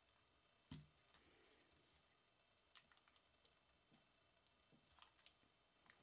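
Faint clicks and taps of hard plastic parts being handled and fitted together: a remote training collar's receiver and a clear plastic piece on its probes. One louder knock comes under a second in, then scattered small clicks.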